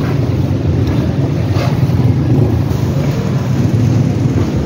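Steady low rumble of street traffic, with wind buffeting the phone's microphone.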